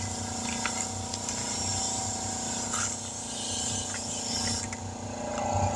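A motor runs steadily while compressed air hisses into a tire as its bead is being seated on the rim and pressure builds, with a few light knocks.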